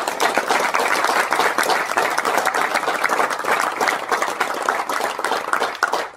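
Audience applauding: a dense run of many hands clapping that thins out and dies away near the end.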